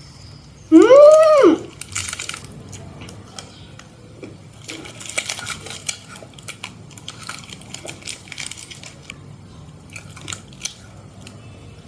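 A girl's drawn-out exclamation of delight, rising then falling in pitch, about a second in. It is followed by quiet chewing and the crinkle of a sweet's wrapper, with scattered small clicks.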